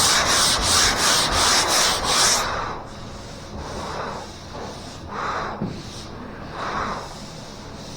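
Hand block-sanding on a car body panel, sandpaper rasping back and forth over body filler. Fast, loud strokes for the first couple of seconds, then slower, quieter strokes about every second and a half.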